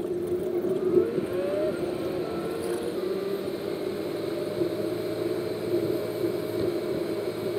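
Car engine and road noise heard from inside the cabin while driving: a steady drone, with the engine note rising briefly about a second in as the car speeds up.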